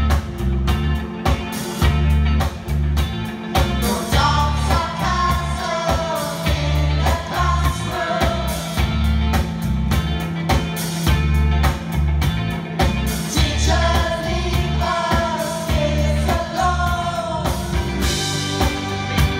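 Live pop-rock band playing with singers, over drums and a pulsing bass line that keep a steady beat.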